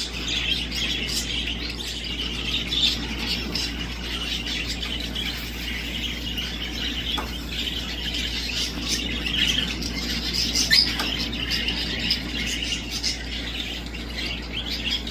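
Birds chattering and squawking without a break, a dense overlap of short high calls, with a steady low hum underneath.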